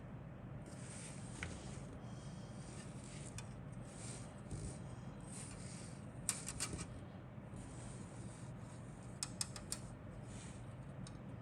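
Rustling and light clicking of plastic model kit parts being handled, with small clusters of sharp clicks about six and nine seconds in.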